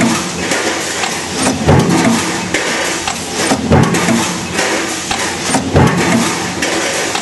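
Power press running a progressive die, stamping pole clamps from metal strip: a heavy stamping thud about every two seconds, three in all, over the press's steady running noise.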